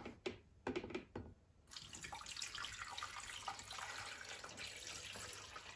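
Water poured from a glass carafe into the water tank of a drip filter coffee maker: a steady splashing stream that starts about two seconds in, after a few light clicks.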